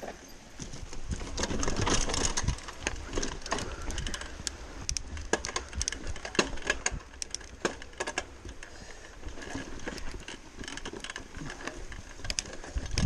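Giant Talon 3 29er mountain bike riding down a dirt trail and over wooden boardwalk planks: tyres rolling over dirt and leaves with a low rumble, and the bike's chain and parts clattering in many irregular sharp clicks over the bumps.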